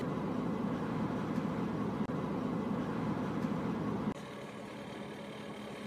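Coach engine idling, heard inside the passenger cabin as a steady low hum. Just after four seconds in the sound cuts abruptly to a quieter steady hum with a faint low tone.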